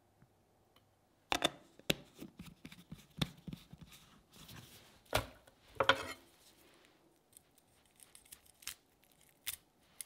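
Raw shell-on shrimp being cut and handled on a plastic cutting board: a run of sharp clicks, knocks and crackling shell sounds, busiest in the first half, then a few scattered clicks.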